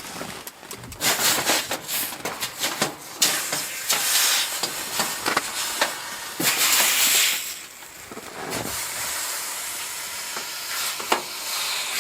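Pots with slush and ice on their bottoms sizzling and hissing on a hot wood stove, with many sharp crackles and pops.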